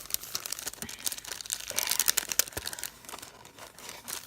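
Small packaging bags crinkling and rustling as items are handled and unwrapped, busiest about two seconds in.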